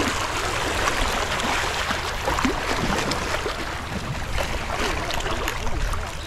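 Sea water washing and splashing along the shore, a steady rushing noise with small splashes.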